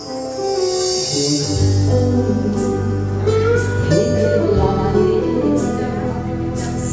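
Live acoustic guitar and keyboard accompaniment of a ballad, with a low sustained bass note coming in about one and a half seconds in.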